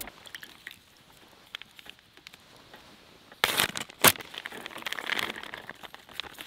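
Plastic vacuum-seal food bags crinkling as they are handled and slit open with a knife over an aluminium mess tin. It starts after about three quiet seconds and includes a sharp click about four seconds in.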